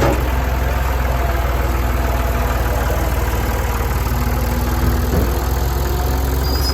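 Engine running steadily at an even speed, a low hum with a fine regular pulse and no change in pitch.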